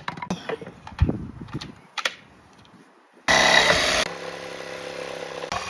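A few handling clicks and knocks, then an electric power tool motor switches on about three seconds in and runs steadily. It is loudest for under a second, then settles a little quieter.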